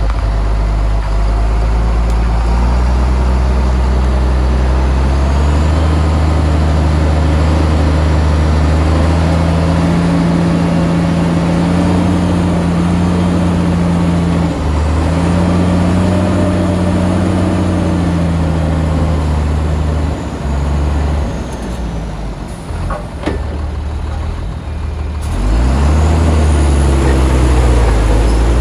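Bulldozer's diesel engine working under load, its pitch rising and falling as the revs change. It eases off about twenty seconds in, then climbs again near the end.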